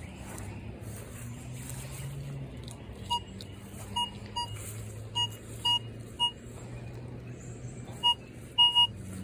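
Minelab Vanquish 440 metal detector giving short beeps at one pitch each time its coil sweeps over a copper penny buried in a 7 to 8 inch hole. The beeps start about three seconds in, come about ten times at uneven spacing and are loudest near the end: a solid signal on the coin.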